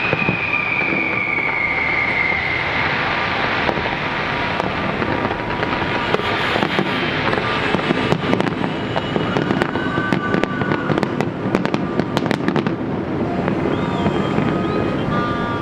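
Fireworks display: a falling whistle over the first few seconds, then a dense run of crackling pops from about six to thirteen seconds, over a steady background din.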